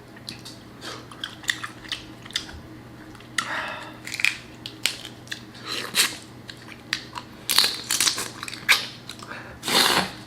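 Crawfish shells cracked and peeled by hand, with chewing and mouth sounds close to the microphone: irregular sharp snaps and crackles, with a couple of longer wet bursts about three seconds in and near the end.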